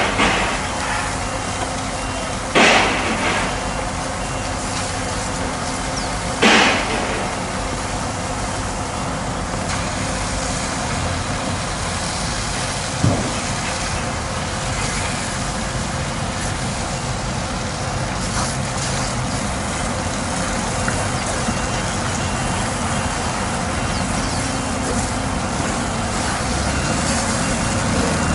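Scania mining truck's diesel engine running under the steady hiss of water spraying from a hose, broken by three short loud hisses in the first seven seconds. The sound grows a little louder toward the end.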